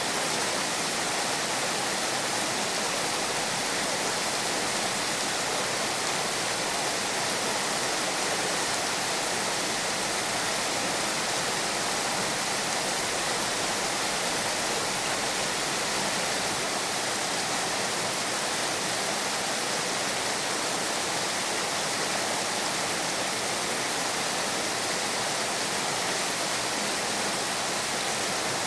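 Heavy rain falling steadily, a dense, even hiss with no breaks or distinct drops standing out.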